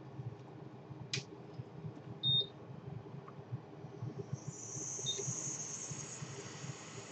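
Hot air rework station: a loud short electronic beep about two seconds in, then a steady high hiss of its airflow starting about four seconds in, with two fainter short beeps, over a low steady hum.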